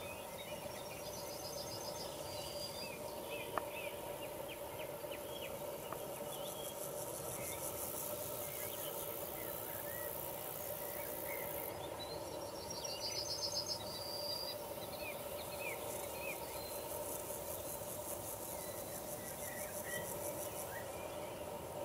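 Meadow insects stridulating: two high, rapidly pulsed chirp trains about two seconds long, over a constant high buzzing of many insects, with scattered faint chirps and a steady hum underneath. A single sharp click a few seconds in.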